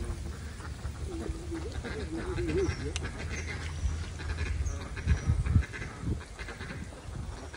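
Splashing and sloshing of a mesh hand net being worked through pond water, loudest a little past five seconds in, over a low rumble. Wavering honking calls sound about a second in.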